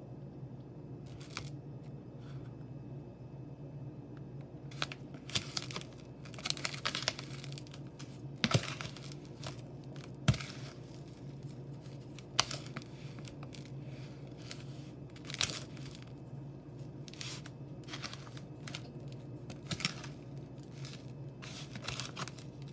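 Raw chicken pieces being dredged through dry breadcrumbs, the crumbs rustling and crunching in irregular bursts, with a couple of sharp knocks a third of the way through. A low steady hum runs underneath.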